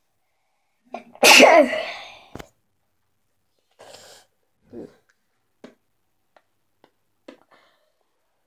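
A person sneezing once, loudly, about a second in, followed by a few faint clicks and rustles.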